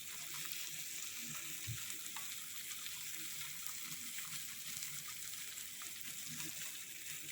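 Fish frying with ginger in hot oil in a wok, a steady sizzle.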